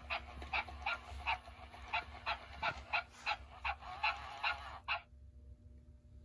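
Spin Master 'Best Friend Max' walking talking toy dog playing recorded barks through its small speaker: a quick run of tinny yaps, about three a second, that stops about five seconds in.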